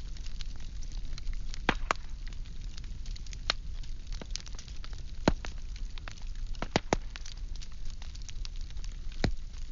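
Burning firewood crackling and popping: irregular sharp snaps, a handful louder than the rest, over a steady low rumble of the fire.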